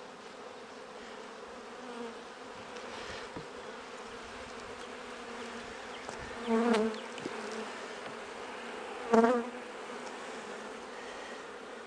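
Honeybees buzzing over an open hive, a steady hum. A louder, closer buzz swells up briefly twice, about six and a half and nine seconds in.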